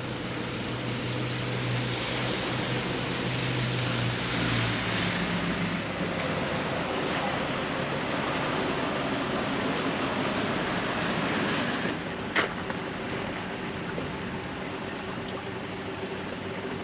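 Steady outdoor noise of wind and passing road traffic, swelling twice as if vehicles go by, with one sharp click about twelve seconds in.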